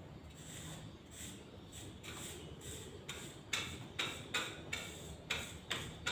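Hand tool scraping on cement in short strokes: soft at first, then about seven sharper scrapes in quick succession in the second half.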